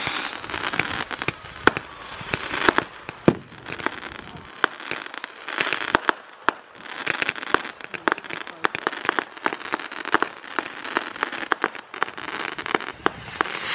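Consumer retail fireworks going off: a rapid, irregular string of sharp pops and bangs with crackling between them, several per second, the loudest bangs in the first few seconds.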